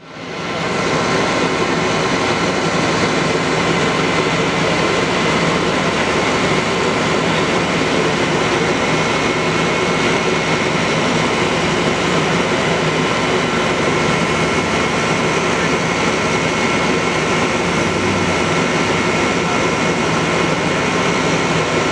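Steady engine drone of emergency vehicles idling: fire apparatus and an ambulance running in place, a constant noise with a few steady high tones through it and no siren.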